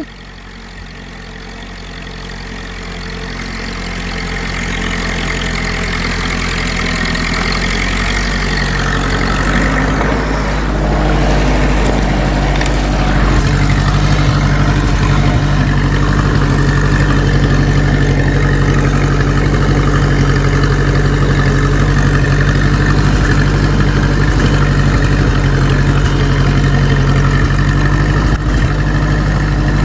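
Ferguson T20 tractor's four-cylinder engine running steadily while working a two-furrow plough. It grows louder over the first ten seconds or so as the tractor comes closer, then holds an even note.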